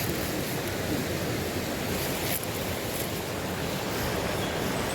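River water rushing steadily over a stony bed.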